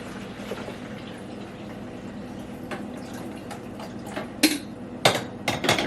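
Water pouring steadily into a drip coffee maker's reservoir, followed by a few sharp clinks and knocks of kitchenware near the end.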